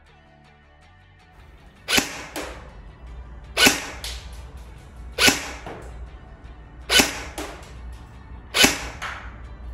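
Tokyo Marui M4 CRW high-cycle electric airsoft gun fired in single shots through a chronograph for a muzzle-velocity check. There are five sharp shots about 1.7 seconds apart, each followed by a few fainter clicks. The shots start about two seconds in.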